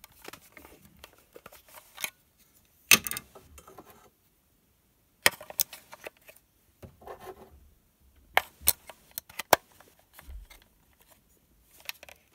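Scattered sharp clicks, taps and light scraping of tools and parts being handled, with a short gap of dead silence about four seconds in.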